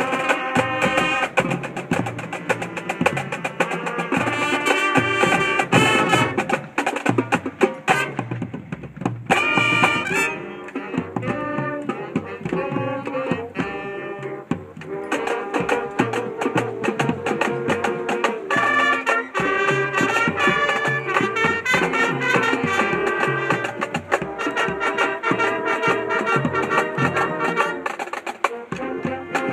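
A band playing at rehearsal: brass and woodwinds sounding sustained chords and melody over a steady drum beat.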